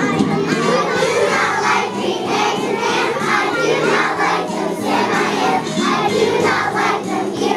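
A group of young children singing a song together as a choir.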